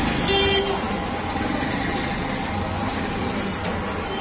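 Steady street traffic noise, with a short vehicle horn toot about a third of a second in.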